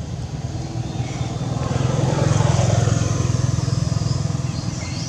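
A motor vehicle's engine passing by, growing louder to a peak about two and a half seconds in, then fading.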